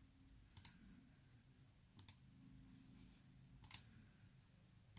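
Computer mouse clicking: three single sharp clicks about a second and a half apart, over a faint low room hum.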